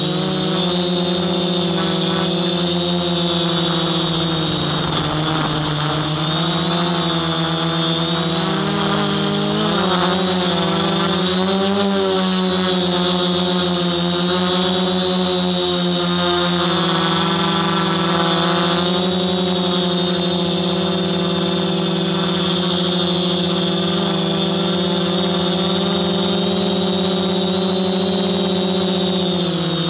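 Quadcopter's brushless motors and propellers buzzing steadily, heard from the drone's own onboard camera. The pitch rises and falls at times, most in the first half and again a little past the middle.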